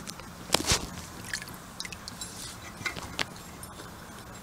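Close handling noise: scattered clicks, knocks and light scraping, with a sharper knock about half a second in and another about three seconds in.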